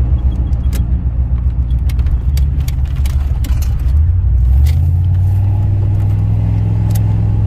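Car engine and road rumble heard from inside the cabin while driving, with a few light clicks and knocks. About four and a half seconds in the engine note rises a little and holds steady.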